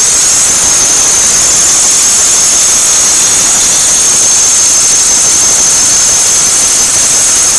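2006 Toyota Corolla engine running with a loud, steady high-pitched squeal over a hissing whir. The squeal is one that appears only in cold, damp weather.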